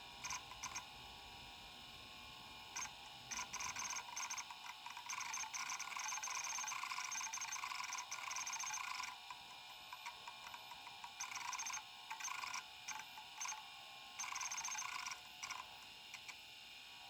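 Kalok KL3100 stepper-motor hard drive seeking: its head stepper motor makes bursts of rapid chattering buzz over a steady high whine. The longest burst lasts about six seconds, with shorter bursts after it, as the drive reads during a Windows 95 boot.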